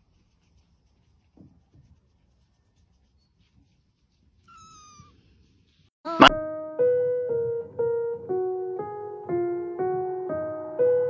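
A kitten mews once, short and high, about four and a half seconds in. About six seconds in, piano music starts suddenly with a sharp first note and goes on as a melody, a new note about every half second.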